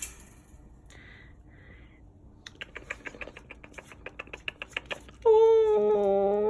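A puppy's claws scrabbling and clicking fast and unevenly against a hard surface for a few seconds. About five seconds in, a loud, steady held musical note comes in and drowns it out.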